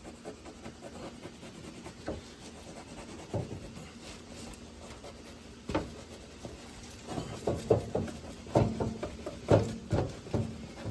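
A knife sawing through bread: short rasping strokes, scattered at first, then quicker and more regular in the second half.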